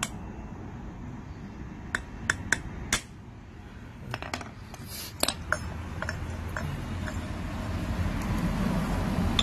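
Claw hammer striking a stainless steel exhaust silencer insert: four sharp metallic strikes with a short ring about two to three seconds in, then a few lighter knocks. A low engine rumble builds near the end.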